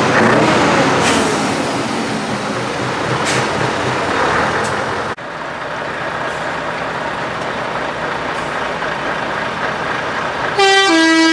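Scania 143 V8 truck engines running as the trucks roll by slowly in convoy, the engine note bending as the first truck passes. Near the end a loud truck air horn sounds, stepping down from one note to a lower one.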